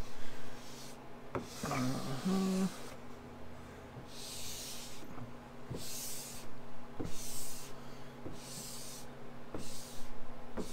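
Plastic squeegee drawn in repeated strokes over a wet vinyl decal on a car hood, pushing out soapy water and wrinkles: a string of rubbing swishes about a second apart.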